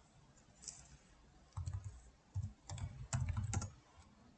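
Computer keyboard being typed on, an irregular run of keystrokes with short gaps between them.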